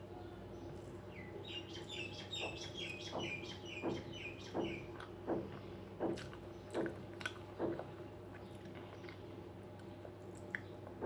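Close-up eating sounds: soft, regular chewing strokes about one every 0.7 s, over a steady low hum. A bird gives a quick run of high chirps in the first few seconds.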